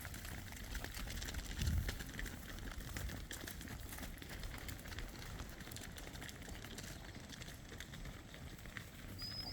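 Cattle and calves walking past, their hooves making scattered soft steps over a steady low rumble. A short high chirp near the end.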